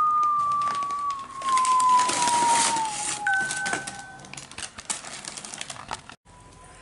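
Paper takeout bag rustling and crinkling as it is handled, with a long squeal sliding slowly down in pitch for about four seconds and a brief higher squeal about three seconds in.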